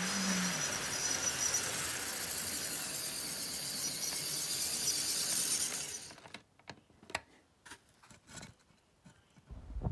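HO scale model train running, a steady whir with a high whine that stops about six seconds in. A few scattered light clicks follow.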